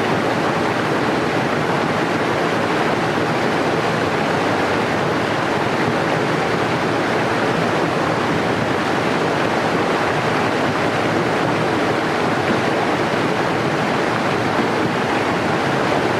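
Waterfall: water rushing over rocks with a steady, unbroken rush of noise.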